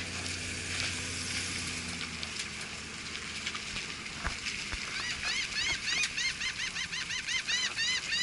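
A bird calling a rapid series of short, rising-and-falling notes, about four a second, starting about five seconds in, over a steady hiss. A low hum fades out in the first two seconds.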